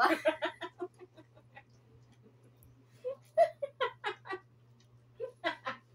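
Women laughing in short, chopped runs of giggles: one right at the start that trails off, then more about three and five seconds in. A faint steady low hum runs underneath.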